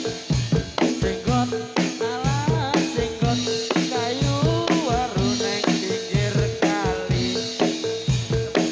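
Javanese jathilan dance music played live: a fast, steady drum beat with repeated metallophone-like notes over it. In the middle, a wavering melodic line bends up and down above the beat.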